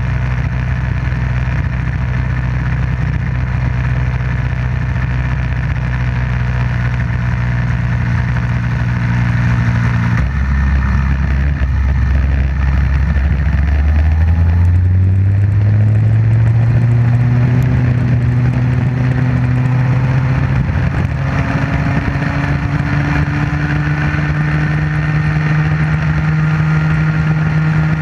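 Small Comer 50cc two-stroke Bambino kart engine heard onboard, held at steady revs for about ten seconds, then dropping in pitch and climbing steadily as the kart takes up drive and accelerates away. Other karts' engines rise and fall faintly around the middle.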